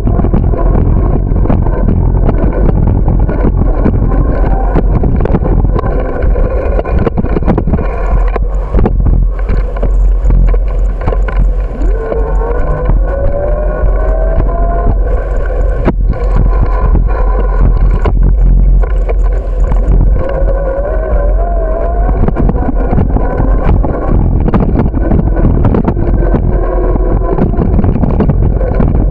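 Steady wind buffeting the microphone and rolling rumble of a moving bicycle over pavement, with frequent small rattling knocks. Two short rising whines come near the middle.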